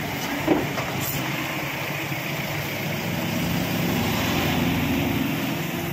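Steady engine hum of idling or passing road traffic, with a short knock about half a second in.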